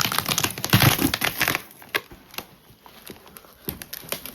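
Cardboard shipping box being torn open by hand, a dense burst of tearing and crinkling for about the first second and a half, then scattered light crackles.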